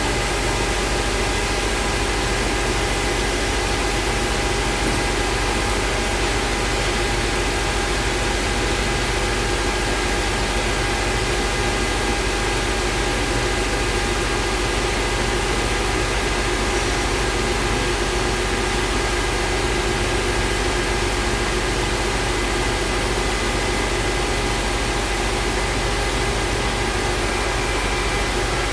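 Multicam 3000 Series CNC router running under power: a steady machine hum with a few constant whining tones over an even hiss, unchanging throughout.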